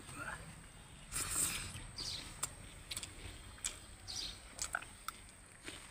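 Close-up eating sounds: chewing with scattered wet mouth clicks and lip smacks.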